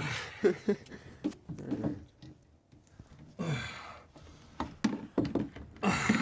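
Handling noise while a heater is fastened up with wire: scattered sharp clicks and knocks, with two short bursts of rustling, one about halfway through and one near the end.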